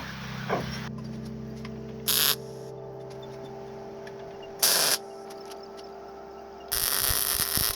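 Three short bursts of welding, likely a MIG welder laying tack welds, each a harsh crackling hiss that starts and stops abruptly, the last about a second long, over a steady electrical hum.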